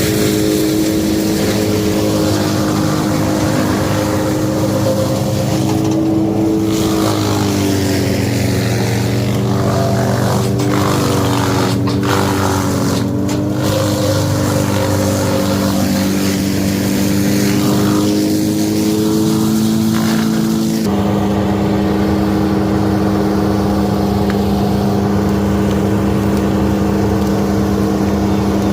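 Engine running steadily at high speed, holding a near-constant pitch with small wavers, and shifting abruptly to a slightly different steady tone about 21 seconds in.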